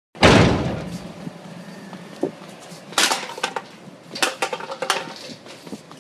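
Handling noise on a phone's microphone: a loud rustling burst at the start that dies away over about a second, then scattered knocks and scrapes as the phone is moved about.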